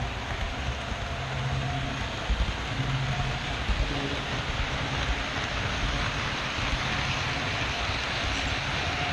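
HO-scale model train running along the track, with steady rumbling and rattling from the wheels and motor heard from the camera riding on the layout. A few louder knocks come about two and four seconds in.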